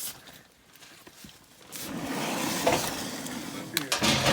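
Rustling and scraping from someone handling things and shifting about for a couple of seconds, followed near the end by a few sharp clicks and a knock.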